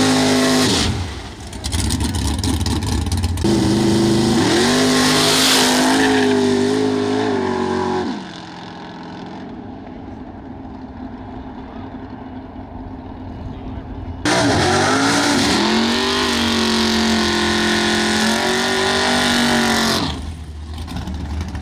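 Drag cars' engines revving hard during burnouts and launches, the pitch climbing and falling with each rev. The engine sound turns quieter and distant about eight seconds in, as a car runs away down the strip, then jumps loud again near fourteen seconds with another car revving in its burnout.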